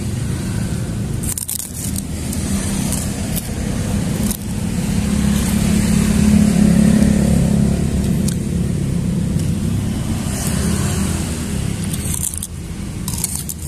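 A motor vehicle engine running close by. It grows louder toward the middle and then eases off. A few light clinks of metal spoons against a ceramic plate sound over it.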